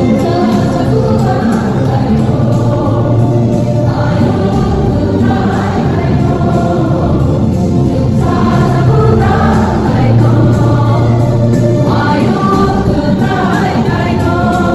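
Church choir singing a Christmas hymn, the women's voices amplified through handheld microphones, over a steady bass accompaniment.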